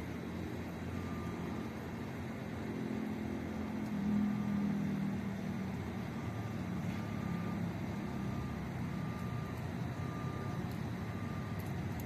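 A vehicle's engine running with a low rumble that swells about four seconds in, while a reversing alarm beeps about once a second.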